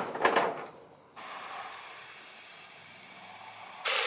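A short burst of sound in the first half second, then rushing, spraying water: a steady hiss that starts abruptly and becomes clearly louder and fuller near the end.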